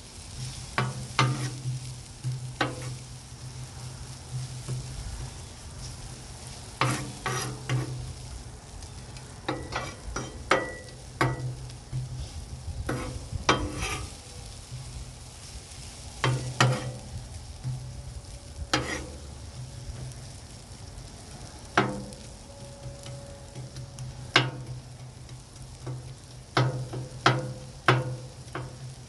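Onions frying in ghee on a flat-top gas griddle, sizzling steadily, with sharp scrapes and clacks of a metal spatula on the steel cooktop every few seconds as they are stirred.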